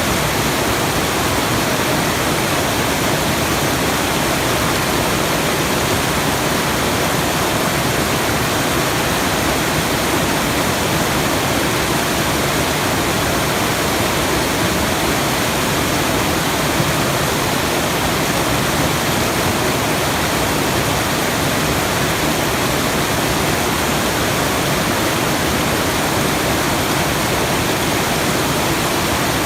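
Steady, unbroken rushing water, an even noise at constant level throughout.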